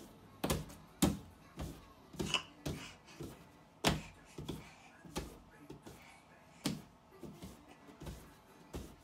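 A toddler slapping his open palms against a wall: a string of irregular slaps, roughly one or two a second, some louder than others.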